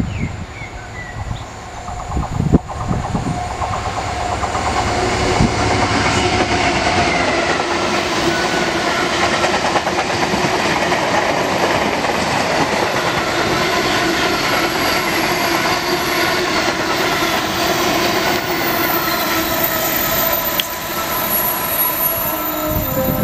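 Diesel-hauled freight train of covered steel-coil wagons passing close by: the locomotive's low rumble with some clicks comes in first, then from a few seconds in a loud, steady rush of wagon wheels on rail, overlaid with sustained whining wheel squeal.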